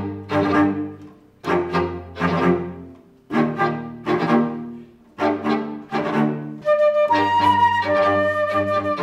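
Violin, cello and flute trio playing classical music. Four short phrases of heavy bowed chords each start hard and fade. About seven seconds in, the playing turns continuous, with the flute's high notes held over the strings.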